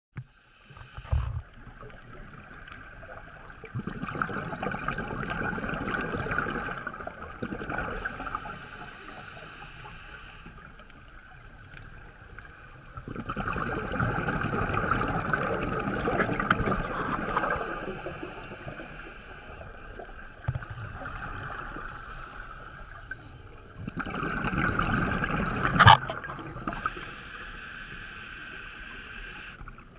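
Scuba regulator breathing heard underwater: long bubbling exhalations about every ten seconds, with quieter hissing inhalations between them and a sharp click near the end.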